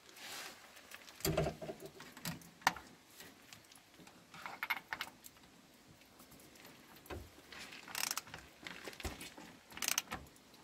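Hand tools on the rear differential's fill plug: a socket and extension clicked onto a ratchet and the ratchet set to the plug. Scattered metallic clicks, clinks and knocks, with a few short bursts of rapid clicking.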